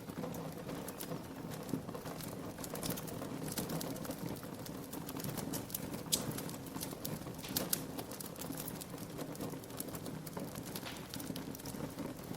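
Wood fire crackling in a fireplace: irregular sharp pops and snaps over a low, steady rumble of flame, with a few louder pops about halfway through.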